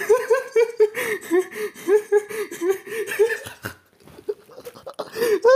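A person laughing in quick repeated bursts. The laughter pauses briefly a little past halfway, then starts again near the end.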